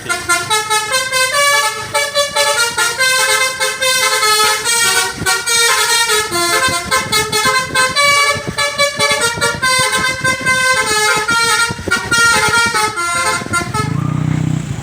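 Indonesian bus 'basuri' telolet multi-tone horn, loud, playing a fast tune of short stepping notes for about thirteen seconds, then stopping as a low rumble comes in near the end.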